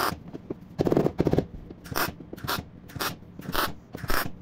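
MIG welder stitch-welding a patch panel onto thin car-body sheet steel: a series of short crackling tack welds, about two a second, each lasting a fraction of a second with brief pauses between.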